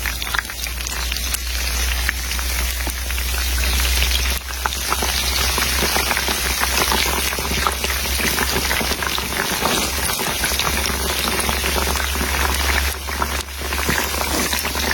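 Food sizzling and crackling in hot oil: a dense, steady frying crackle with brief dips about four and thirteen seconds in.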